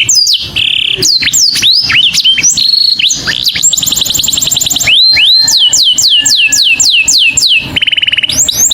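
Canary singing a loud, fast song made of repeated phrases: quick downward-sliding whistles, a rapid high trill, a run of falling notes, then a buzzy lower trill near the end.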